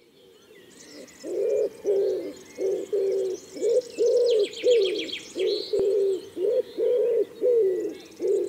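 Birdsong: a bird of the pigeon family cooing, a run of low notes at about two a second that begins about a second in. Smaller birds chirp higher up over it, with a quick rapid trill near the middle.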